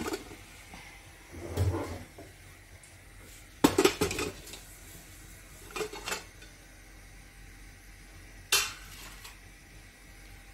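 Stainless steel pots, pans and a steel spice box clanking as the spice box is pulled out from among cookware in a cabinet and set down: several separate metal knocks and clinks, the loudest about three and a half seconds in and a last one about eight seconds in.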